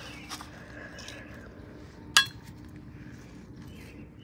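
A single sharp clink about two seconds in, with a brief ring after it, and a few lighter clicks near the start.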